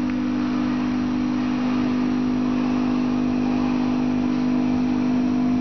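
1986 Thyssen-MAN inclined traction elevator in travel, its drive giving a steady low hum at an even pitch over a hiss of running noise.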